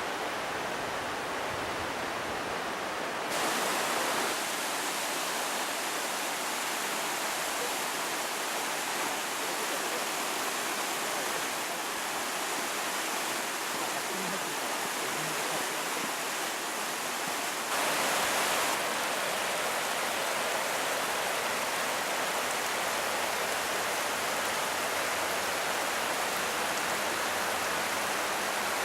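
Fukiware Falls' water pouring over the rock ledges: a steady rushing hiss of falling water, briefly louder twice, once a few seconds in and once a little past the middle.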